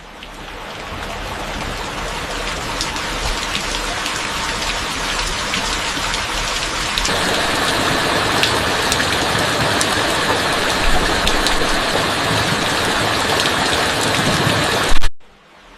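Rain falling steadily, a dense even hiss that fades in over the first couple of seconds and turns thinner and hissier about seven seconds in. A sharp loud pop near the end is followed by a sudden drop in level.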